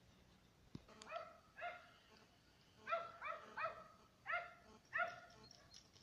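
A dog barking, about seven short barks in an irregular series starting about a second in.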